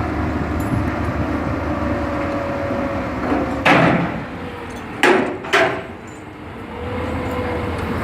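A steady engine-like running noise with a faint held tone, broken by three sharp knocks: one a little before the middle, then two close together about a second and a half later.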